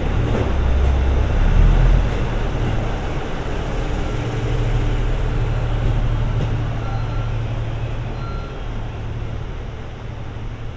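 Trains moving through the platform: a steady low rumble of railcar engines and wheels that is loudest about two seconds in and slowly eases off, from a departing electric train and a KiHa 75 diesel railcar.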